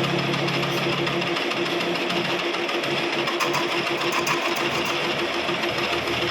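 Lathe running with a rapid, even pulsing whir, and scratchy scraping now and then as the tool cuts the turning workpiece.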